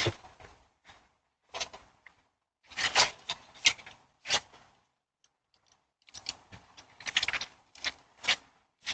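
Irregular rustling, clicks and knocks of someone handling and moving objects, in short scattered bursts that come thicker and faster in the last few seconds.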